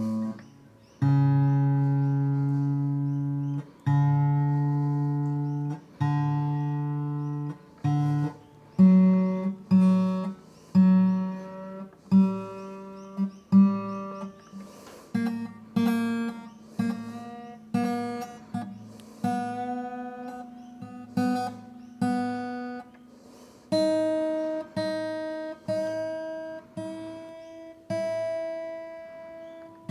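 Emerald X7 carbon-fibre acoustic guitar being tuned: single strings plucked one at a time and left to ring. There are two long low notes first, then quicker repeated plucks that step up to higher strings.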